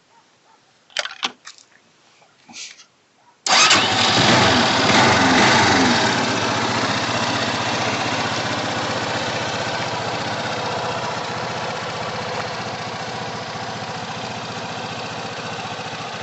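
A few light clicks, then about three and a half seconds in the GM Sportbike R 250 motorcycle's engine starts suddenly and runs loud for a couple of seconds before settling into a steady idle.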